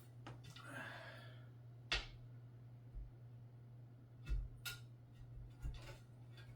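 Scattered sharp clicks and knocks from the side panels being fitted onto a Thermaltake Versa H18 PC case, with a soft breath about a second in, over a steady low hum.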